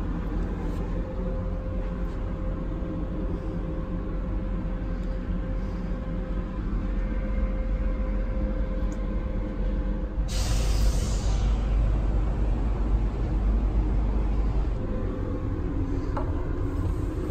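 Steady low hum of a railway sleeper coach heard from inside the compartment, with a faint constant tone. About ten seconds in comes a sudden hiss of air that fades over about two seconds.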